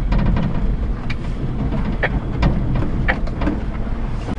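Inside the cab of a Japanese kei mini truck driving over a rough, rutted dirt trail: the small engine runs with a steady low rumble while the cab gives several sharp, irregular knocks and rattles as the truck jolts over bumps.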